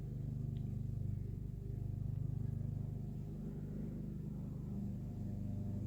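Steady low hum of a small motor running, with a slight pulsing rise and fall in level.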